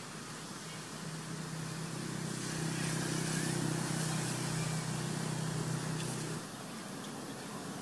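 A motor vehicle engine running steadily with a low hum. It grows louder over the first couple of seconds and drops away about six seconds in.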